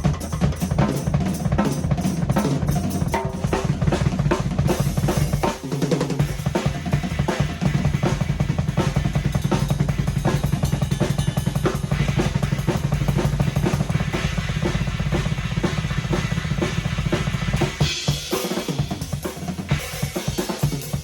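Drum kit played fast, with dense rapid snare, tom and kick-drum strikes in a busy groove and a steady low tone underneath for most of it. A cymbal wash comes in about eighteen seconds in.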